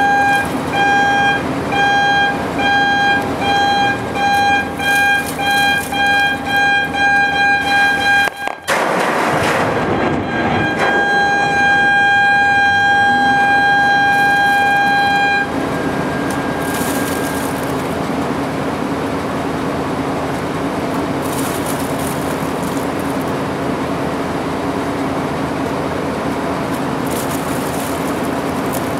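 Blast warning horn on a drilling barge sounding rapid short blasts, about two a second, then a muffled underwater rock blast about eight and a half seconds in. After it the same horn gives one long unbroken blast, typical of an all-clear signal, and then a steady low background hum remains.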